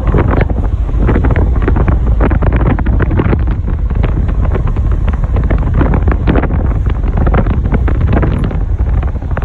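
Heavy wind buffeting on the microphone: a loud, steady low rumble with constant crackling.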